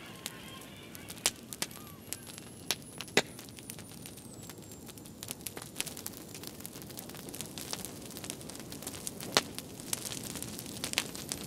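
Irregular crackling: sharp clicks and pops scattered over a steady hiss, with a faint thin high tone that slides down in pitch in the first few seconds.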